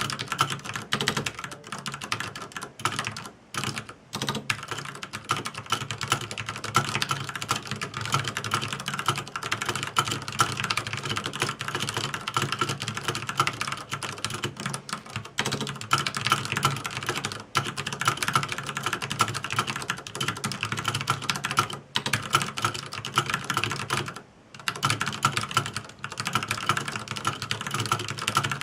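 Continuous fast typing on a computer keyboard, dense key clicks with a few brief pauses.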